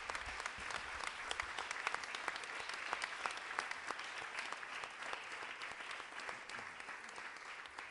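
Audience applauding, many hands clapping together; the applause thins out near the end.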